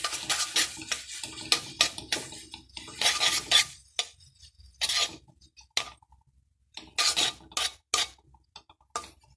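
A metal spatula scraping and stirring noodles and chopped vegetables around a metal kadhai (wok) in short, irregular scrapes, with a brief pause a little past the middle.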